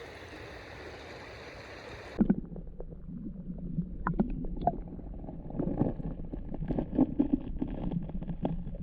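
Creek water running steadily, then about two seconds in the sound cuts abruptly to a muffled low gurgling rumble with scattered knocks and clicks.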